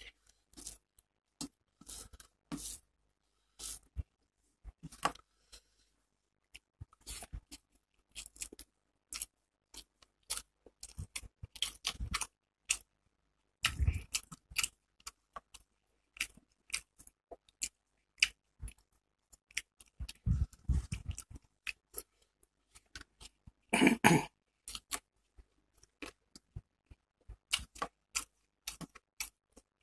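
Close-up eating sounds: a person chewing rice and hilsa fish and mixing rice by hand on a steel plate, heard as many short wet clicks and smacks with gaps between. One louder burst comes about three-quarters of the way through.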